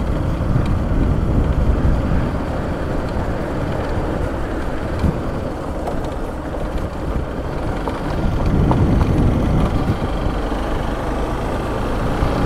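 Steady rumble of wind and road noise from a moving vehicle, heaviest in the low end, with no clear engine note standing out.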